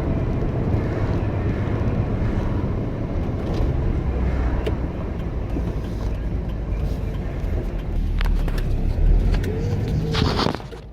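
Car on the move, heard from inside the cabin: a steady low rumble of engine and road noise that drops off sharply near the end.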